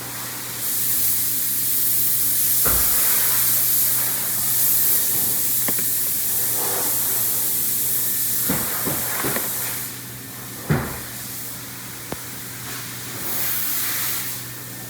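AdBlue (diesel exhaust fluid) being poured from a can into a Jeep Compass diesel's AdBlue filler, a steady hissing rush that eases off about ten seconds in and comes back briefly near the end. A couple of light knocks are heard along the way.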